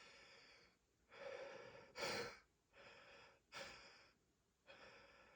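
A man's heavy, gasping breaths, about six in a row, during a sneezing fit from a dust allergy flare-up. The sharpest and loudest breath comes about two seconds in.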